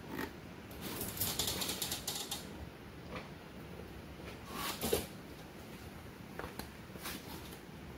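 Screwdriver working a small screw in a three-wheeler's fairing mounting hardware: light mechanical clicking and scraping, densest about a second in, with a brief rustle about five seconds in.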